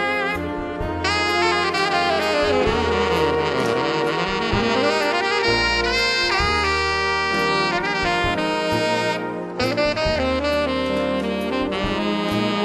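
Background jazz music with a saxophone playing the lead over low bass notes.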